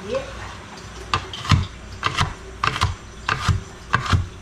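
Kitchen knife chopping onion on a clear plastic cutting board with one leg missing: irregular knocks, about two a second.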